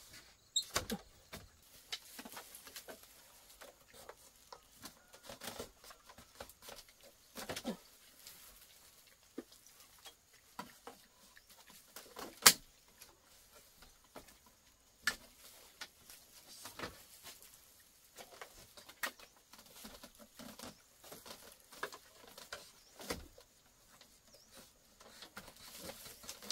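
Irregular light taps and clicks of hands handling objects, with one sharp knock about halfway through.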